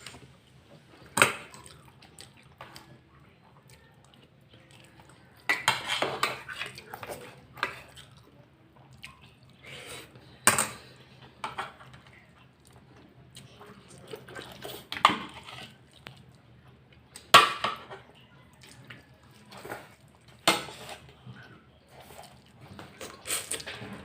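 Cutlery clinking and scraping against a plate or bowl while eating, in sharp separate clinks every few seconds with a busier run of clatter near the start.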